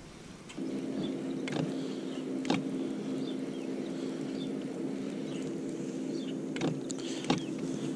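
Electric trolling motor switched on about half a second in, then running with a steady hum as the boat moves along the bank, with a few sharp clicks over it.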